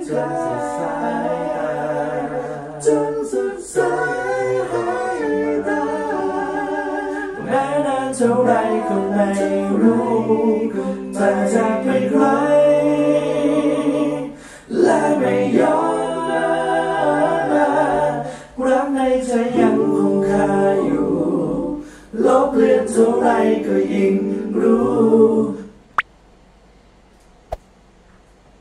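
Multi-part a cappella vocal arrangement playing back: several layered voices singing in close harmony, with short breaks between phrases. It stops abruptly near the end, leaving a few faint clicks.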